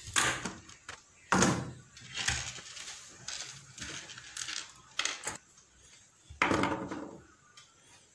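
Knocks and scrapes of a switchboard panel and its fittings being handled and shifted by hand, with a handful of separate knocks and quieter rustling between them.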